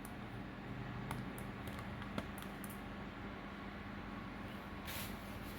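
Steady low hum of a running GPU mining rig and its fans, with a few faint clicks and a short hiss near the end.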